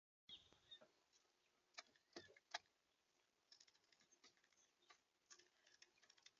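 Faint, irregular taps and clicks of a bird pecking and moving about at a feeder close to the birdcam, with a brief high chirp right at the start.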